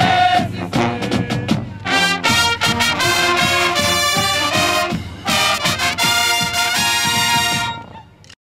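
Marching band brass playing: short punchy notes at first, then long held chords from about two seconds in, cut off suddenly near the end.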